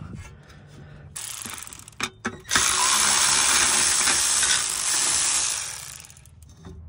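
Cordless electric ratchet running, spinning out a bolt from the brake backing plate on a Commodore's solid rear axle housing. A few short clicks and bursts come first, then a steady run of about three seconds that tails off.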